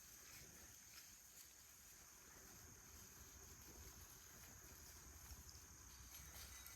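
Faint, steady high-pitched insect trill over near-silent woodland quiet.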